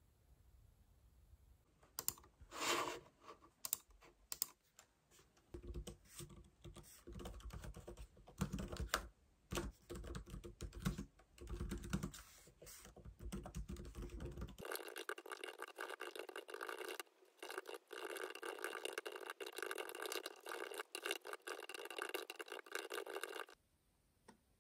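Typing on a laptop keyboard: quick, irregular key clicks starting about two seconds in. About midway the clatter turns denser and thinner, with no low thump, and it stops shortly before the end.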